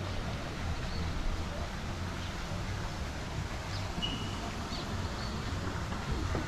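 Outdoor ambience: wind rumbling on the microphone, with a few short bird chirps, one clearer chirp about four seconds in.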